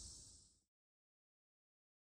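Crickets chirring in the field, fading out within the first second, then total silence.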